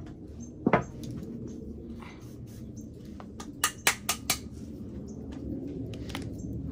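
A utensil knocking and clinking against a saucepan as a sauce is stirred: one sharp knock about a second in, then a quick run of four clinks around the middle.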